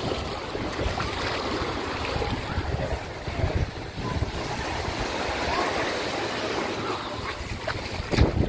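Wind buffeting the microphone over waves washing onto a beach, a steady rushing with gusty low rumbles and a brief knock near the end.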